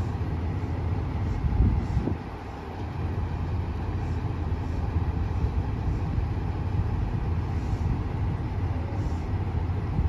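2700 series diesel railcar's engines running with a steady low rumble while the train stands at the platform.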